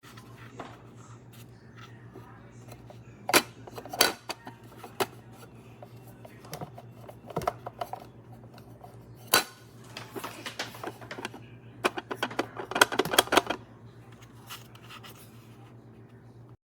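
Irregular clicks, knocks and light clatter of small hard objects being handled, over a steady low hum, with a cluster of rapid clicks near the end.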